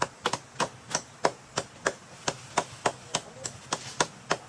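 Steady, rapid chopping strokes, about three a second, each a sharp knock.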